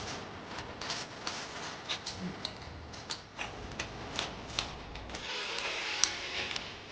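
Light, irregular clicks and taps of food being prepared by hand, with a short rustling hiss about five seconds in.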